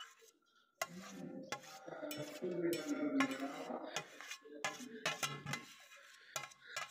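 Metal spoon clinking and scraping against a cooking pot, a string of sharp clatters, as cooked rice is spooned in over a biryani layer.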